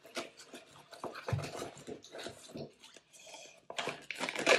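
Plastic candyfloss packaging crinkling and rustling in irregular bursts of crackles as it is handled and opened.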